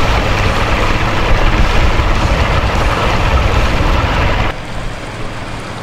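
Outboard motor running a boat at speed, with loud rushing water from the churning wake behind it. About four and a half seconds in, the sound drops abruptly to a quieter, lower rumble.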